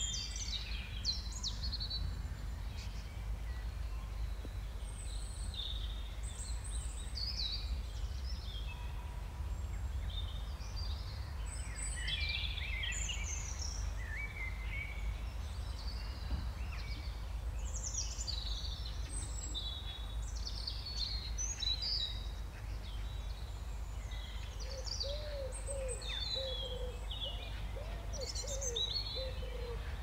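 Garden birdsong: several small birds chirping and singing over a steady low rumble. Near the end a pigeon starts cooing repeatedly in low, soft calls.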